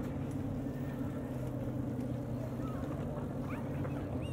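Steady low drone of a boat engine running on the river, with a few short rising-and-falling high calls near the end.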